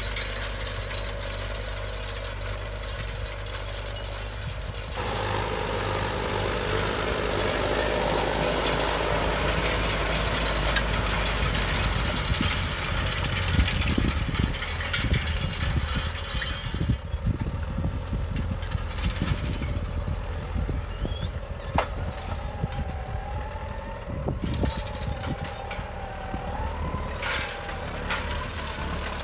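John Deere 6330 tractor engine running steadily under load as it pulls an Akpil field cultivator through cloddy soil, with the cultivator's tines and frame rattling and knocking over the clods.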